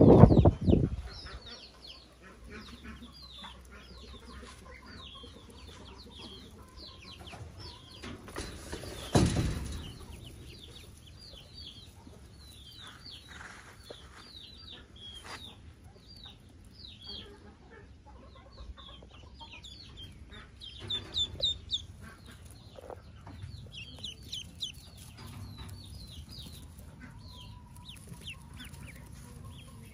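A brood of newly hatched Pekin ducklings peeping: many short, high, downward-sliding peeps all through, a few louder around twenty seconds in. A loud noise fades out within the first second, and there is a brief louder rustle about nine seconds in.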